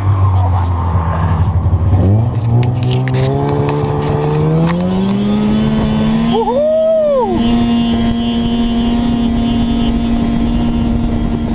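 Engine of a motor vehicle running over the ice, first at a low steady speed, then speeding up from about two seconds in, its pitch climbing for several seconds and then holding steady at speed. About halfway through, a short tone rises and falls over it.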